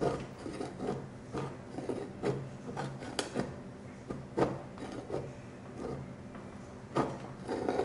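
A metal paint scraper scraping old, dried oil paint off a glass palette in uneven, rasping strokes.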